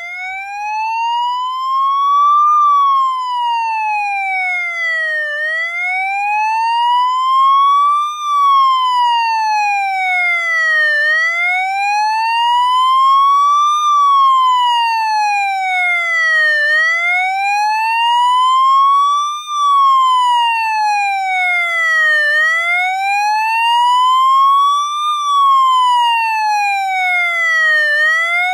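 US police motorcycle siren sounding a slow wail, its pitch rising and falling smoothly about every five and a half seconds.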